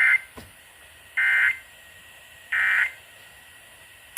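Emergency Alert System end-of-message code: three short bursts of rapid two-tone SAME data, a little over a second apart, marking the end of the Required Monthly Test broadcast over FM radio.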